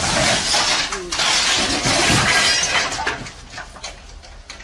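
A forklift's load of white blocks crashing down and breaking apart: a long, loud, noisy crash for about three seconds, then scattered clatter of pieces settling. A voice cries out briefly near the start.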